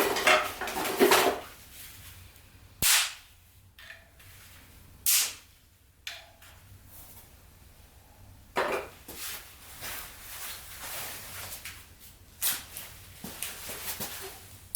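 Dry wood giving sharp cracks and snaps at irregular intervals, with quieter crackling in between.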